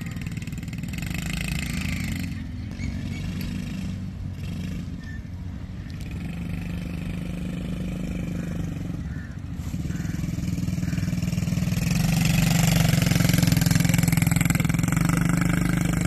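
Small quad bike (ATV) engine running as it is ridden around on sand, growing louder as it comes near and loudest about thirteen seconds in.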